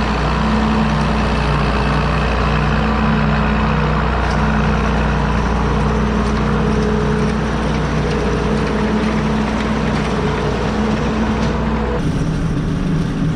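Tractor engine running steadily with a constant hum, driving a silage feeder wagon as feed is put out; the sound changes abruptly near the end.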